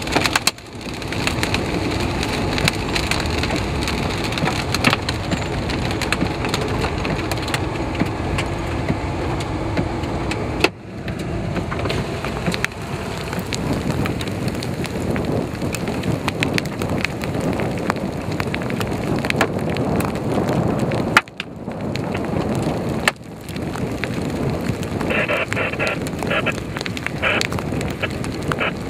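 Hail and rain pelting a car, heard from inside the cabin: a dense, irregular clatter of sharp knocks on the roof and windshield over a steady rush of rain and wind.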